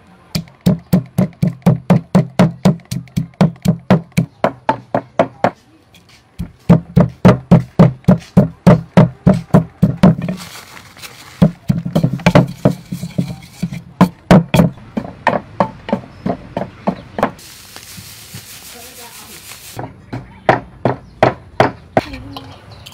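Wooden pestle pounding chilies and salt in a clay mortar: a steady run of thuds, about four a second. The runs break off for short pauses, with a stretch of noise and no strikes about three-quarters of the way through.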